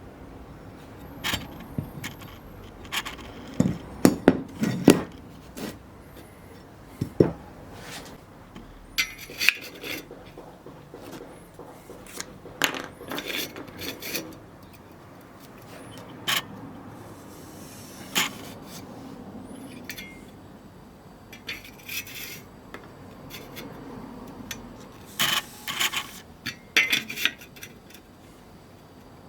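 Metal pieces clinking, knocking and scraping as they are handled, in irregular single strikes and short clusters, with quieter stretches between.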